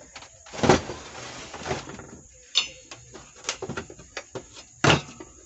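Irregular knocks, clicks and scraping as a power amplifier's module board is slid and fitted back into its metal chassis and its wiring handled, with the loudest knocks about three-quarters of a second in and near the end.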